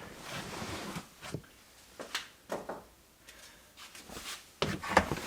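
Scattered light knocks, clicks and rustles of someone moving about and handling things, with a louder cluster of knocks near the end.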